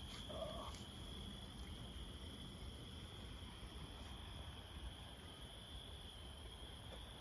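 Crickets trilling steadily in one high, unbroken pitch over a faint low background rumble.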